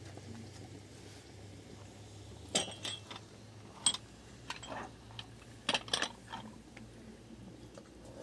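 Scattered sharp clicks and light knocks, several in quick succession from about two and a half seconds in, over a faint low hum.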